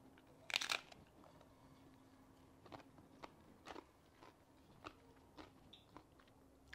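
A bite into a crisp corn tostada topped with salad: one sharp crunch about half a second in, then a few faint crunches as it is chewed.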